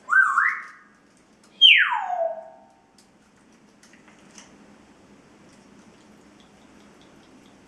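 A parrot whistles twice. The first is a short whistle that rises, dips and rises again. About a second and a half later comes a longer whistle that slides steeply from high to low. A faint steady hiss follows.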